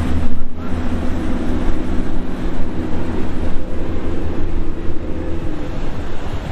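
Powerboat engine running with a steady low drone over a rushing hiss.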